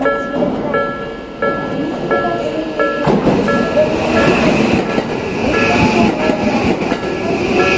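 Japanese level-crossing warning bell ringing in a steady two-tone beat, about three strokes every two seconds. About three seconds in, a Tokyo Metro 13000 series train reaches the crossing and its wheel and running noise takes over under the bell.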